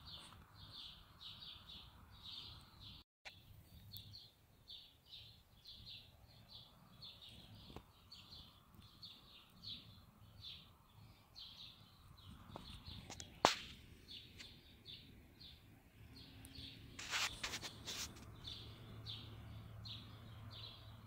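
A bird chirping over and over, faint short high chirps about three a second. A single sharp click about halfway through and a brief rustling clatter a few seconds later.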